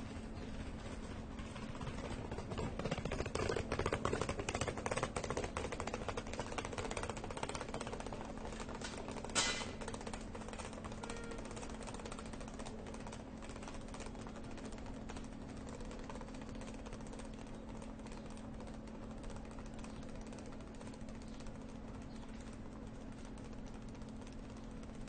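Train station platform ambience: a steady low hum under general background noise, with a stretch of busy rapid rattling and clicking about two to seven seconds in, and a single short sharp hit near ten seconds in.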